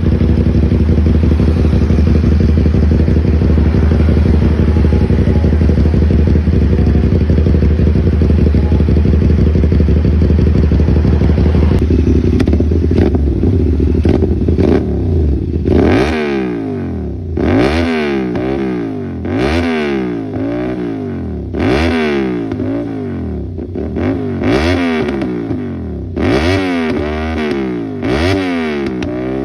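CFMoto 450SR's parallel-twin engine running steadily, then blipped repeatedly from about halfway, the revs rising and falling every couple of seconds. The exhaust is spitting, with sharp pops and crackles as the throttle snaps shut.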